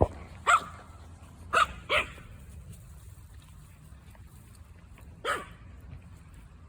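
Small Yorkshire terrier giving short, sharp play barks: three in quick succession in the first two seconds and one more near the end.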